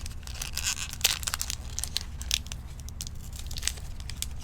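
Wrapper of a Topps Gypsy Queen trading-card pack crinkling and tearing as it is opened, in irregular crackly bursts over a steady low hum.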